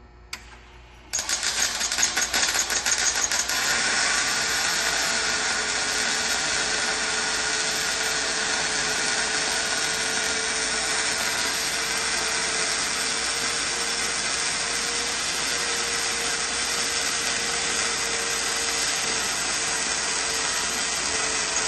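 Welding arc struck about a second in, crackling unevenly for the first few seconds, then burning with a steady crackling hiss and a faint steady tone until it cuts off near the end. The weld is run with a deliberately simulated defect: lack of penetration over most of its length.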